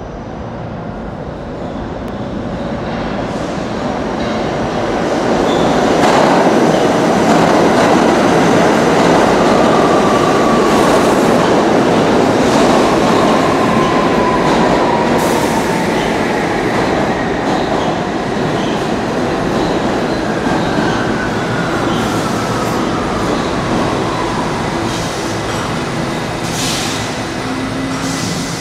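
R68 subway train pulling into an underground station: its rumble builds over the first six seconds as it approaches, then stays loud as the cars run past. Wheels click over rail joints, and a thin whine falls in pitch as the train brakes and slows.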